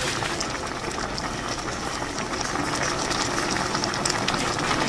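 Soup boiling hard in an earthenware pot: a steady, dense bubbling hiss.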